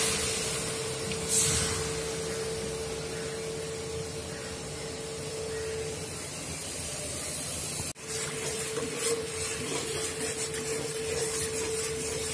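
Steady hissing of jaggery syrup heating in a wide aluminium kadai on a stove, with a faint steady hum under it. The sound drops out briefly about eight seconds in.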